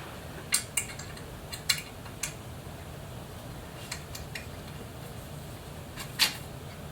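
Scattered light metal clinks and taps from hand tools working the e-bike's fender bolts, about seven in all, the loudest near the end.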